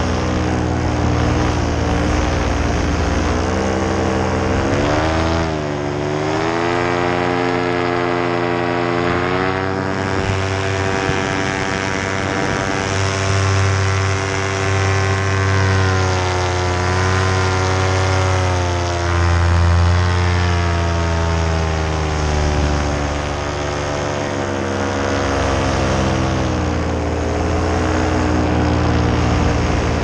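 Paramotor engine and propeller running under power in flight, revs dipping and climbing back about five seconds in, then holding with small rises and falls.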